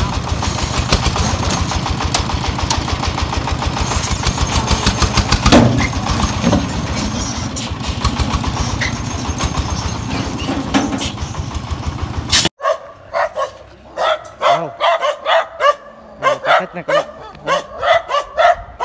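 Single-cylinder diesel engine of a công nông farm truck running steadily with its dump bed raised, with a loud knock about five and a half seconds in. After an abrupt cut a little past twelve seconds, a dog barks repeatedly, about two barks a second.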